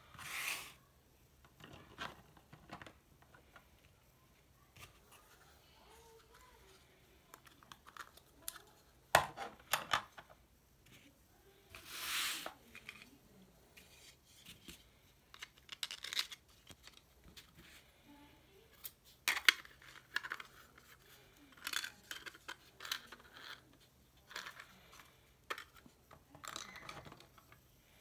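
3D-printed plastic blaster-replica parts being handled and dry-fitted: scattered clicks and knocks as pieces are pushed together and set down on the table, with a few sliding scrapes. The sharpest knocks come about a third and two-thirds of the way through.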